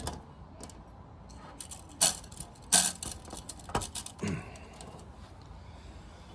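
Small metal parts and tools being handled, with a handful of sharp clinks and clatters over the first four or five seconds, the loudest near three seconds in.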